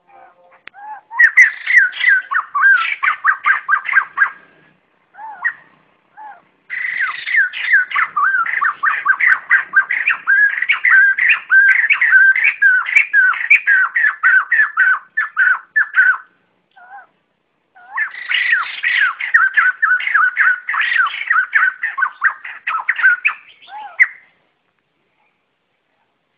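White-crested laughingthrush flock call: loud, rapid chattering cackles in three long bouts, with a few single notes between them, stopping shortly before the end.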